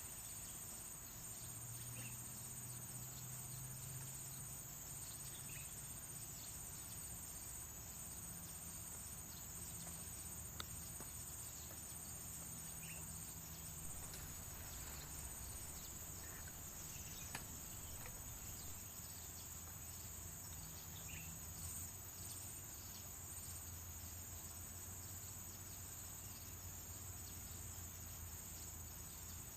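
Steady chorus of insects such as crickets, a continuous high trill, with a faint low hum underneath and a few soft clicks.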